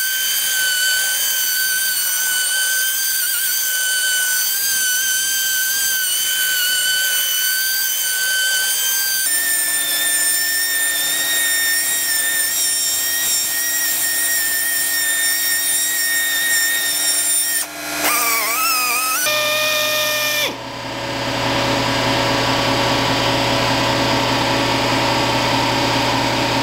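Small handheld rotary polisher spinning a foam pad on a plastic headlight lens, giving a steady high whine. Its pitch steps up about a third of the way in, wavers briefly past the middle, and from about three-quarters in changes to a lower, fuller steady hum.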